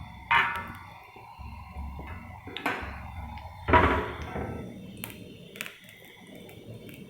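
Metal kitchenware clinking and knocking: three ringing strikes, the loudest about four seconds in, with a few light clicks after it.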